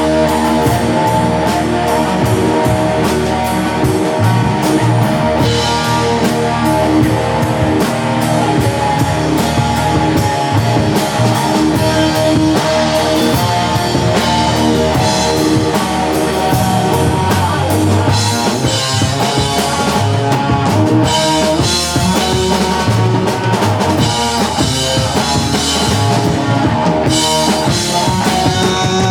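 Live rock band playing an instrumental passage with no vocals: distorted electric guitar, bass and a drum kit, loud and unbroken.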